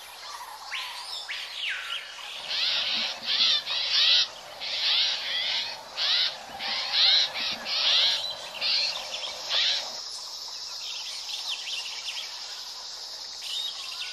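Birds calling in a string of loud, harsh repeated calls, several a second, then from about ten seconds in a steady high insect buzz with fainter bird chirps.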